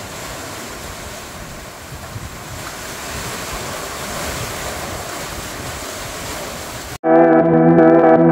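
Sea surf washing in and out of a narrow rocky gully, a steady rushing swell with wind on the microphone. About seven seconds in it cuts off abruptly and guitar music begins.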